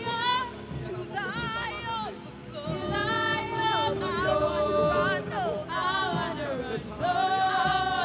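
Worship singing: a voice holding long, wavering sung notes over steady background music.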